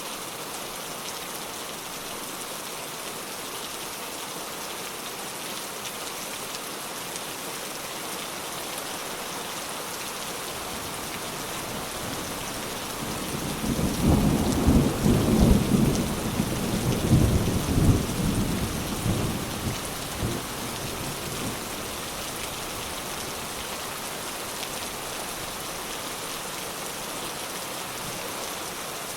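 Steady rain falling, with a roll of thunder rumbling in about halfway through, swelling for several seconds and fading away.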